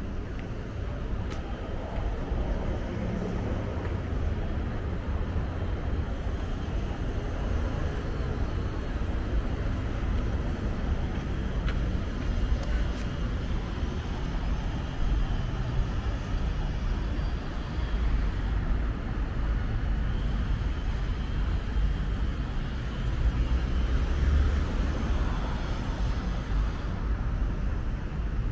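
Steady road traffic on a wide multi-lane avenue: a continuous noise of cars running past, strongest in the low end, swelling now and then as vehicles pass close by.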